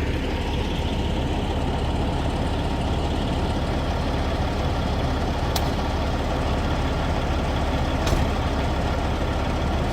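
Freightliner Classic semi truck's diesel engine idling steadily, with two short sharp clicks, one about halfway through and one near the end.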